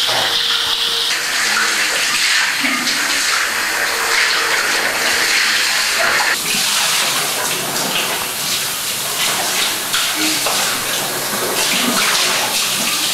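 Water from a wall tap running steadily into a plastic bucket full of water, with irregular splashing as a child moves in it.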